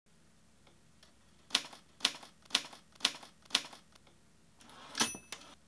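Manual typewriter: five sharp key strikes about half a second apart, then near the end the carriage return sliding and its bell ringing once.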